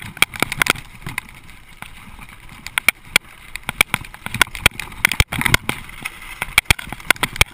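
Mountain bike rattling and clattering as it rides down a loose, rocky trail, with many sharp, irregular knocks and jolts from the rough ground.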